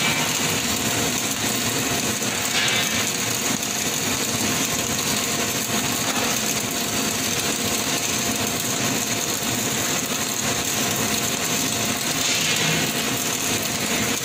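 Robotic swing arc welding with a wire-fed torch, the arc running with a steady hiss as the robot weaves the torch back and forth along the weld. A faint steady tone runs beneath it.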